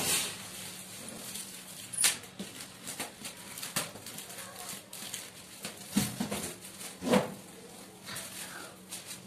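Clear plastic protective film being pulled off a whiteboard, crinkling and crackling irregularly, with a few louder sharp cracks, the loudest about two seconds in and about seven seconds in.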